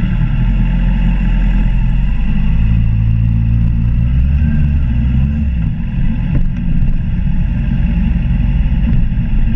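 Suzuki GSX-R750's inline-four engine running loud and steady as the motorcycle rolls slowly away; the deepest part of its note eases about six seconds in.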